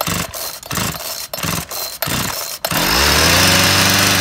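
Two-stroke chainsaw being pull-started with the choke out: repeated chugging pulses as the recoil starter turns the engine over, then about two and a half seconds in it catches, revs up and settles into a steady run.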